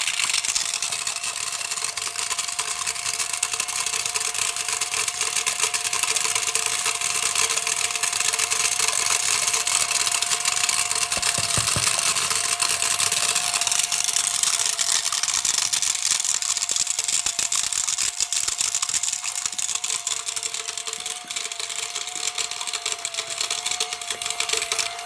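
Small electric motor of a toy running fast on high voltage, giving a steady high whine over a dense crackle, typical of sparking brushes.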